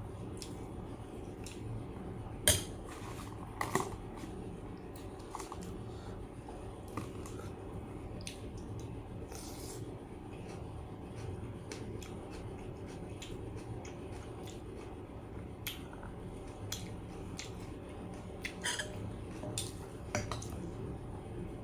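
Scattered clinks and knocks of kitchen utensils against dishes, a few sharper ones among many soft ones, over a steady low background noise.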